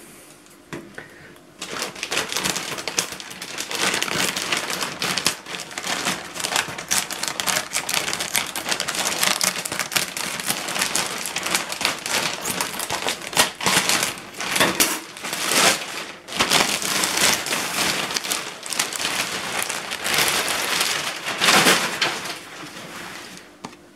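Plastic mailer bag crinkling and rustling as it is opened and handled, a dense run of crackles with a couple of short pauses past the middle.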